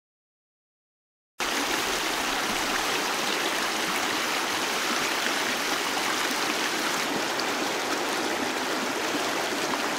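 Silence, then about a second and a half in, a fast, shallow river starts, rushing steadily over its stony bed.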